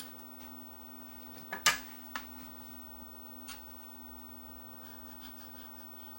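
A few sharp clicks and taps of small tools and parts being handled at a workbench, the loudest about a second and a half in, over a steady low hum.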